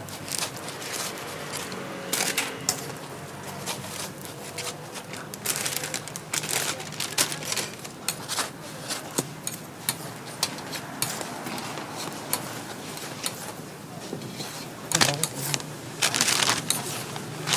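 Metal tongs clicking and tapping against a flat metal griddle as hotteok (sweet pancakes) are turned and moved, in irregular sharp clicks that come in quick clusters.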